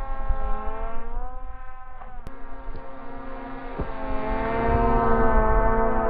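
Electric motor and propeller of a small foam jet-style RC plane whining in flight, the pitch sliding up and down as the throttle and distance change, louder in the last couple of seconds. Wind rumbles on the microphone underneath.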